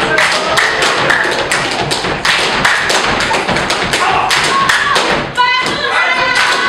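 Gumboot dance: a troupe stamping and slapping their rubber boots in a fast, dense rhythm of sharp slaps and thuds on a wooden stage. Voices call out near the end.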